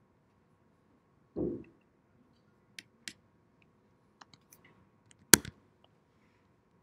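Computer keyboard and mouse clicks, scattered and uneven, with the sharpest click about five seconds in. A dull thump about one and a half seconds in.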